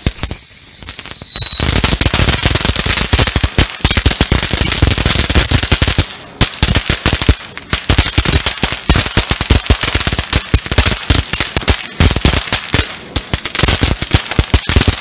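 Ground fountain firework going off. It opens with a short whistle falling in pitch, then gives a dense, rapid crackle of popping sparks that goes on with only brief dips.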